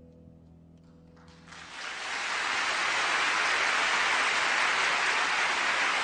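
The final sustained chord of piano and strings fades out. About a second and a half in, audience applause breaks out, swells quickly and holds steady.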